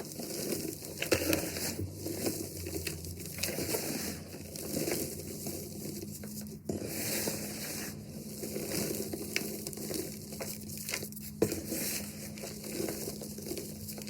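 Blocks of reformed gym chalk being crushed, a dense run of crunchy crackles with a few sharper snaps.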